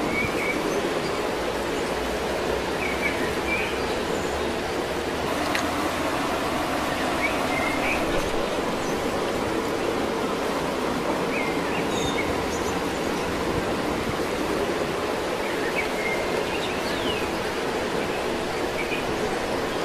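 Steady rushing outdoor noise with short bird chirps every few seconds.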